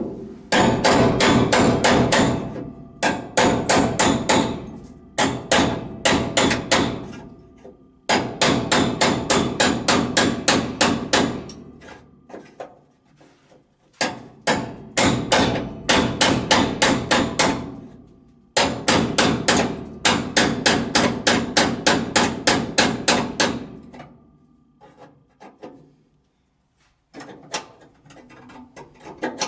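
Rapid hammer blows on sheet metal, about five a second, in runs of a few seconds with short pauses between them, the metal ringing faintly under the strikes. The blows are lighter and more scattered near the end.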